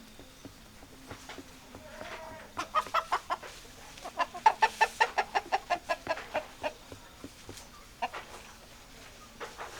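Chickens clucking, with a fast run of loud clucks at about five a second from roughly two and a half to seven seconds in.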